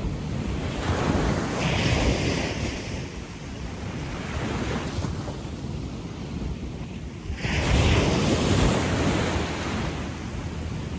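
Gentle ocean waves breaking and washing up a sandy beach: two swells of surf, one about a second in and a louder one about seven and a half seconds in, over a steady low rush.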